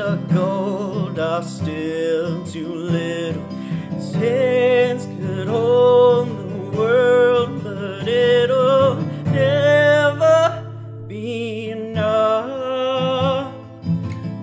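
A solo voice singing long held notes with vibrato over instrumental accompaniment, the closing passage of a pop ballad cover.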